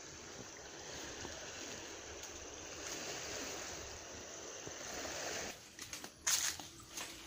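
Steady hiss of surf washing on a beach. Near the end it gives way to a few short, sharp, irregular noises.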